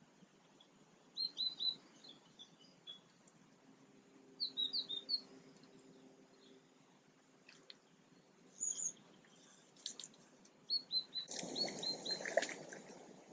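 A small songbird singing short phrases of quick, high chirps, repeated four times. Near the end a louder rush of noise comes in under the last phrase for about a second and a half.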